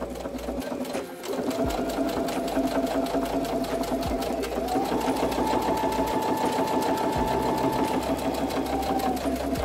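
Electric computerized sewing machine stitching steadily with a zipper foot, topstitching close to the edge along a zipper on oilcloth: a rapid even needle clatter over a motor whine. It stops briefly about a second in, then runs faster from about halfway, the whine rising in pitch, and slows again near the end.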